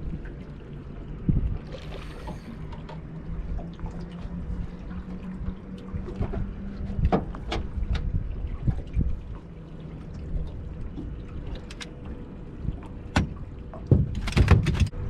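Wind rumbling on the microphone aboard a small boat, with scattered sharp knocks and clicks. A low steady hum runs through the first part, and a loud rushing burst comes near the end.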